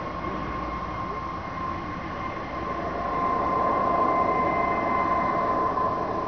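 Air ambulance helicopter in flight just after takeoff: a steady high turbine whine over the rotor and engine noise, growing somewhat louder about three seconds in.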